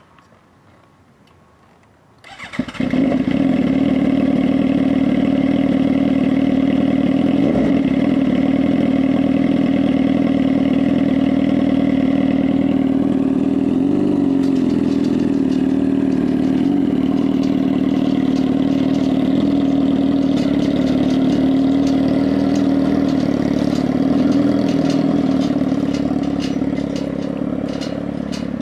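Sport motorcycle engine starting about two seconds in, then running steadily at idle, with a brief rise and fall in pitch about halfway through.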